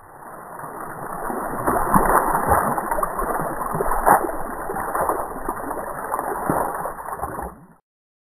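Water splashing and sloshing as a child and a dog wade through a shallow lake, sounding muffled; it cuts off shortly before the end.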